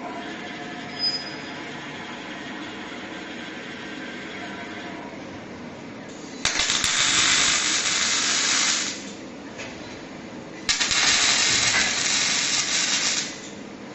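Robotic arc welding: two welds of about two and a half seconds each, about six and a half and eleven seconds in. Each starts suddenly with a click as the arc strikes, runs as a loud hissing crackle, then cuts off sharply. A steady low machine hum sits under the first six seconds.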